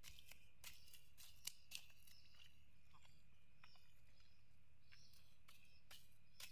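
Faint, quick chops and scrapes of a long-handled hoe cutting grass and mud on a rice-paddy dike, about two or three strokes a second, over a steady low rumble.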